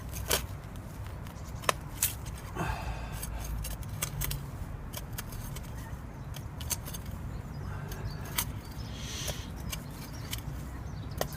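Digging in loose garden soil by hand: irregular scraping and sharp gritty clicks as the tool cuts and scoops the earth.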